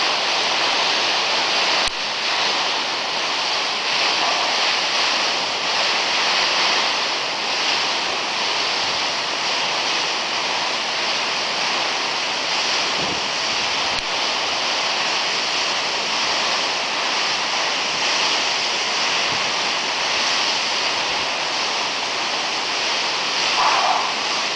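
Steady rush of a waterfall, an even hiss of falling water that does not let up.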